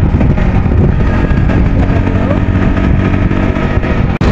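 Motor vehicle engine running steadily with road noise, loud and close, dropping out briefly twice near the end.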